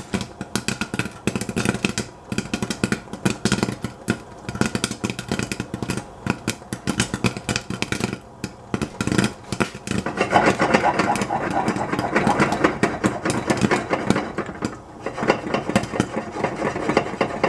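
Popcorn popping fast inside a covered stainless steel pan, kernels pinging against the lid. From about ten seconds in it thickens into a louder, steady rattle as the pan is shaken on the burner.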